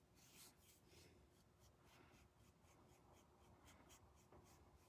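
Faint quick strokes of a paintbrush brushing red paint onto a small wooden board, several scratchy strokes a second.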